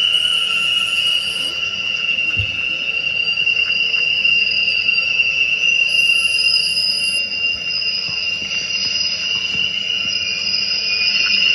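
A steady high-pitched whine with a fainter, higher tone above it, held throughout.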